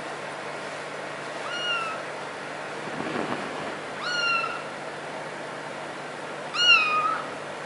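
A cat meowing three times, short high-pitched calls about two and a half seconds apart, the last one the loudest.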